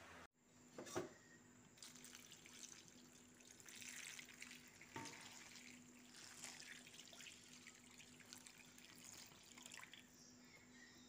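Water being poured into a wok packed with palm-leaf-wrapped ketupat palas, splashing and trickling unevenly as the wok fills for boiling. A short knock about a second in; faint overall.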